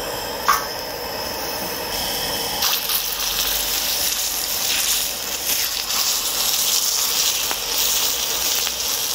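Thick bone-in pork tomahawk chops sizzling in olive oil on an oversized cauldron-lid griddle (sot-ttukkeong), a steady frying hiss that grows louder about two and a half seconds in. A short click about half a second in.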